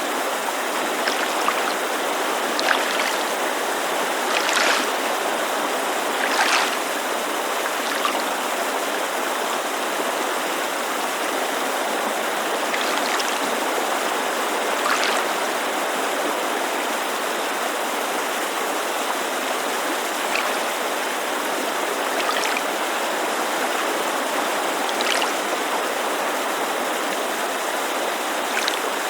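Mountainside creek rushing in a steady hiss, mixed with small lake waves lapping against the shore in brief splashes every few seconds.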